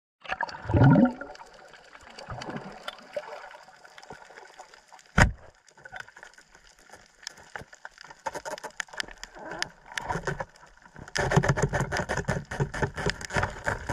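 Underwater sound picked up below the surface on a reef: scattered sharp clicks and gurgling water, with a single sharp knock about five seconds in. From about eleven seconds a dense, loud crackle of rushing bubbles takes over.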